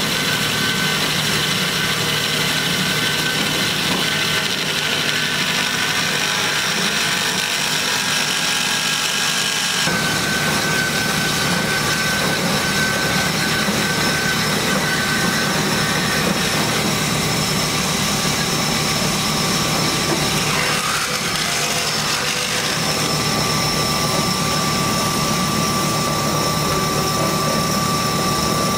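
Hyd-Mech S-23A horizontal band saw running, its blade cutting through rectangular steel tubing: a steady machine hum with several high steady whining tones. The sound fills out lower down about ten seconds in.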